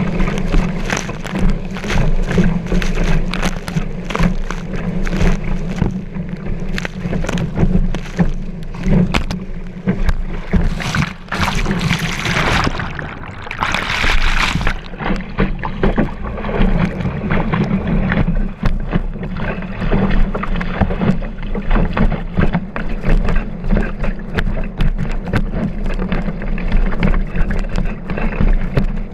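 Water rushing and hissing past a kiteboard, heard from a camera mounted low on the board, with many sharp slaps as the board hits chop over a steady low rumble. About twelve to fifteen seconds in, a louder, brighter rush of churning water as the camera goes under the surface.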